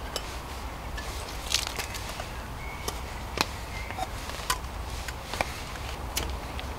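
Wet woodland ambience: a steady hiss with a low rumble underneath, scattered sharp taps and clicks, and a faint bird call about three seconds in.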